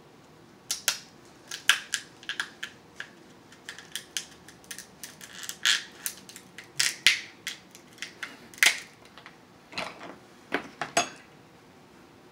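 Kitchen scissors snipping and cracking through the shell of a cooked king crab leg: a run of sharp, irregular cracks and crunches that starts just under a second in and stops about a second before the end.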